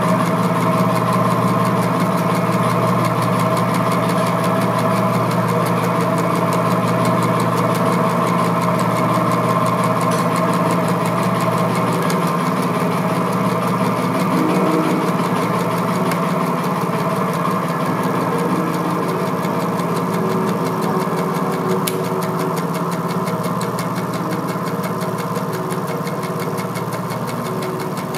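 A steady, mechanical-sounding drone with several held tones and a hissy wash over them, slowly getting quieter toward the end.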